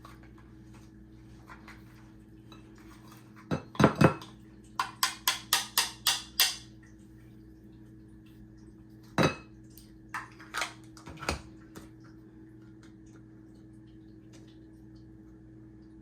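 Hand-pressed garlic dicer chopping garlic cloves, with sharp plastic clacks as it is pushed down: a few heavy knocks, then a quick run of six even strokes, and after a pause a few more strokes.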